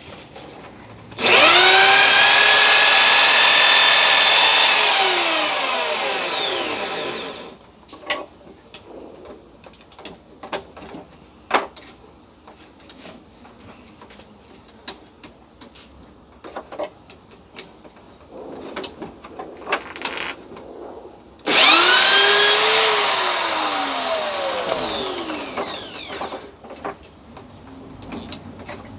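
A small electric power tool sharpening airgun darts. It starts abruptly, runs at a steady high whine for a few seconds, then is switched off and winds down with falling pitch; this happens twice. Between the runs there are small clicks and taps of handling.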